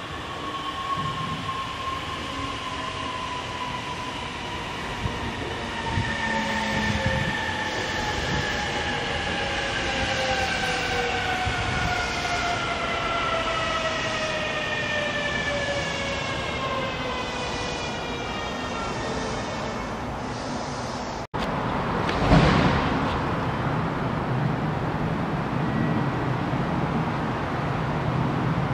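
Electric train's motor whine, several tones together slowly falling in pitch for about twenty seconds over steady running noise. Partway through the sound cuts off briefly, then a loud burst of noise gives way to a steady rumble from a train.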